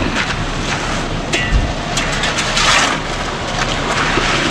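Concrete mixer truck's diesel engine running steadily, with a low thump about a second and a half in and a loud rushing, hissing noise around the middle and again near the end.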